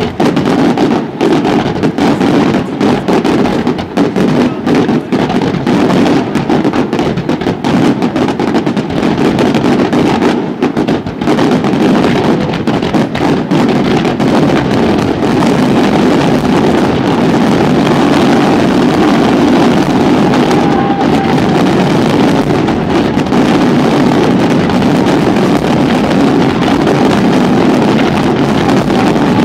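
Fireworks finale: aerial shells bursting loud and thick in quick succession, the separate bangs merging after about fifteen seconds into one continuous rumble.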